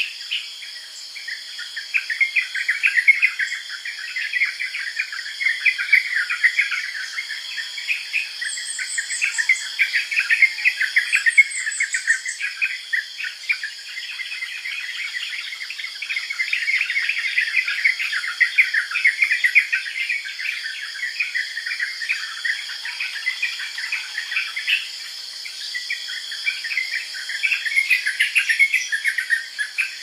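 Yellow-vented bulbul calling: rapid chirping notes almost without pause, over a steady high insect drone.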